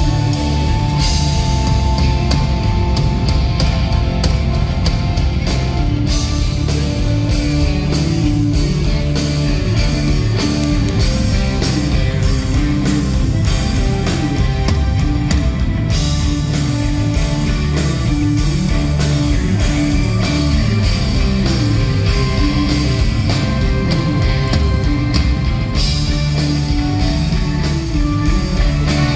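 A rock band playing live and loud: electric guitars, bass guitar and a drum kit, heard from within the audience.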